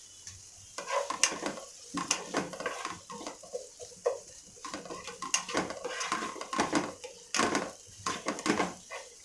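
A spatula stirring and scraping chopped onions around a non-stick pan in a series of irregular strokes, starting about a second in, over a faint sizzle of the onions frying in oil.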